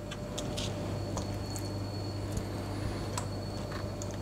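Soft squishing and light clicks of wet rice stuffing being spooned and pressed into hollowed tomatoes and peppers, over a steady low hum.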